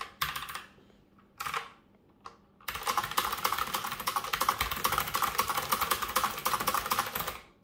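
Fast typing on an Azio Retro Classic mechanical keyboard with Kailh typelet click-collar clicky switches under round typewriter-style keycaps. A few short groups of key presses come in the first two and a half seconds, then about five seconds of dense, rapid key clicks.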